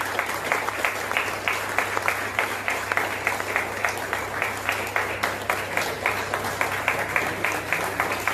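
Applause from a group of people: many hands clapping in a dense, steady patter that stops abruptly near the end.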